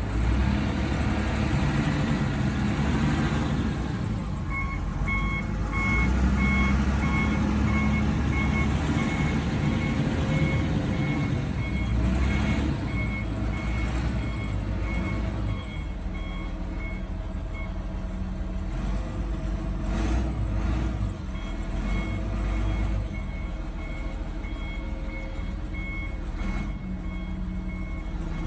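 2008 John Deere 772D motor grader's diesel engine running at low speed as the machine backs up, its backup alarm beeping in a steady pulse. The beeping stops for a few seconds past the middle, then starts again.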